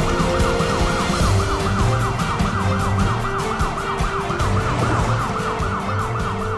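Police car siren in a fast yelp, its pitch sweeping up and down about three times a second, over background music with a steady beat.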